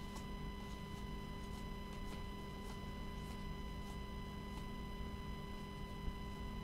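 Trading cards being slid one by one from the front to the back of a stack in gloved hands: faint soft ticks a little over half a second apart, over a steady electrical hum.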